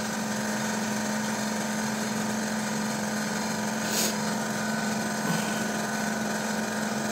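Electric oven preheating with its convection fan running: a steady hum with a low tone. One light click about four seconds in.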